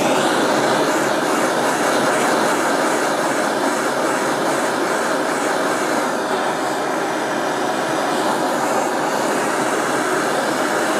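Handheld gas torch flame playing on a copper pipe fitting, heating it so the solder flows into the joint. A loud, steady hiss that comes on suddenly and holds even.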